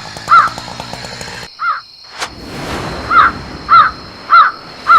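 Crow cawing, short harsh calls repeated about twice a second in a run near the end. A sharp click a little past two seconds is followed by a hiss.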